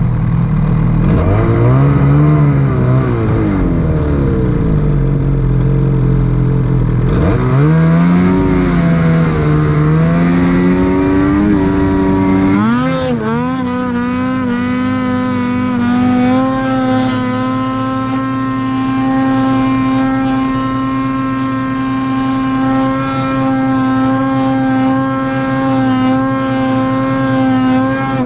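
Ski-Doo mountain snowmobile's two-stroke engine under way. It revs up and down repeatedly through the first dozen seconds, then is held at a steady high pitch under constant throttle as the sled climbs the snow slope.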